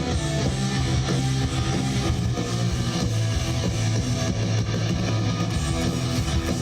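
Rock music: loud, sustained electric guitar chords over bass guitar.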